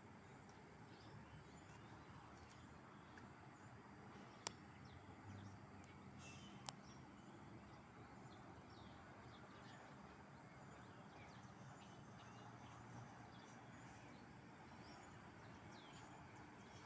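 Faint outdoor ambience with scattered short bird chirps, and two sharp clicks, one about four and a half seconds in and one about two seconds later.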